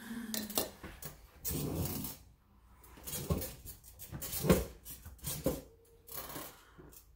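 Painting gear being handled: a string of clinks, knocks and rustles, six or so separate clatters, as a brush and fresh paint are got ready.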